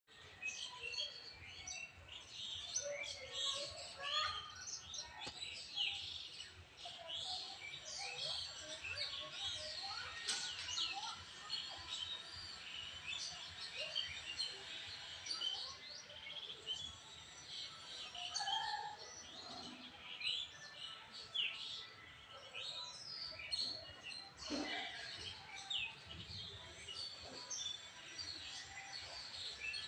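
Many small birds chirping and calling at once, a busy chorus of short, overlapping high chirps and whistles with a few lower calls among them.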